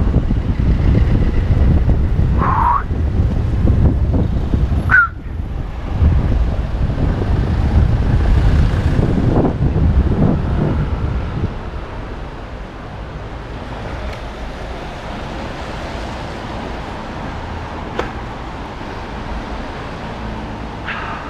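Wind rushing over the microphone and road noise while cycling through city traffic. Loud for about the first half, then easing to a quieter steady rumble. Two short high squeaks come near the start.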